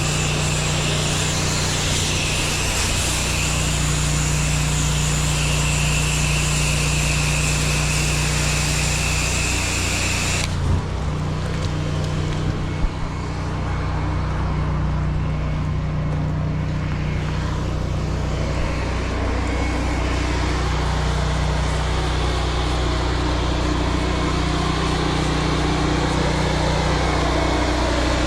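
Pressure washer running steadily with its engine hum underneath; the high-pressure spray hisses with a whistle for about ten seconds, then stops as the trigger is released while the engine keeps running. Two short knocks follow soon after the spray stops.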